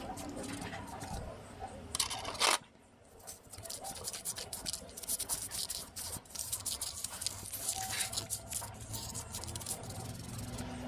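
Small metal freewheeling-hub parts being handled and cleaned by hand: irregular clicks, taps and scraping, with one brief louder hiss about two seconds in.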